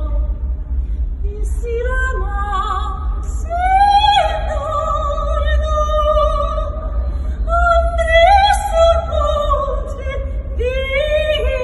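A woman singing an operatic aria unaccompanied, in long held notes with a wide vibrato, in phrases of a few seconds.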